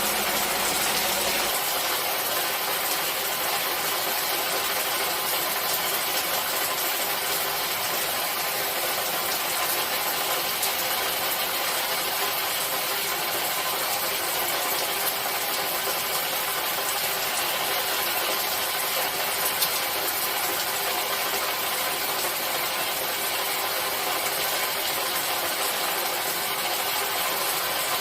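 Steady rainfall: an even hiss of falling rain with a few faint drop ticks.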